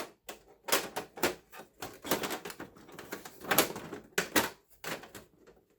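Irregular clicks and knocks of a Dell XPS 8930 desktop's case cover being repeatedly pushed and wiggled against the chassis as its prongs fail to seat flush.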